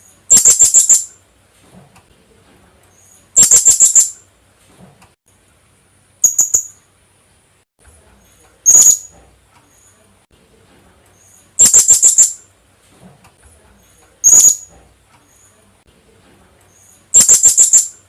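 Philippine hanging parrot (kulasisi) calling: seven short bursts of rapid, high-pitched notes, one every two to three seconds. This is a recorded call played as a lure to draw the birds in.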